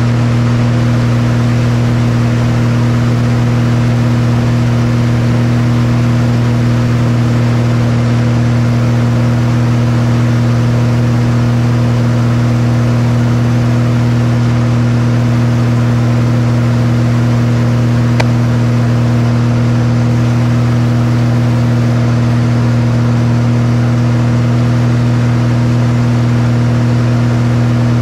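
Single-engine aerobatic plane's piston engine and propeller running steadily in flight, heard inside the cramped cockpit as a loud, even low hum.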